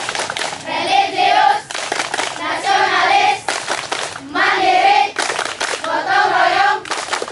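A group of schoolchildren singing a song together, with hand claps sounding through the singing.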